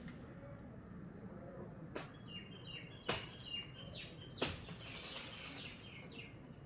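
A small bird calling a rapid series of short, falling chirps, with a couple of brief high whistled notes; three sharp knocks sound between them. No chainsaw running.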